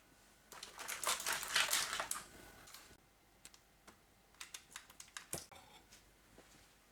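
Light kitchen handling sounds during dinner preparation: about two seconds of dense rustling and clicking, then scattered light clicks and taps.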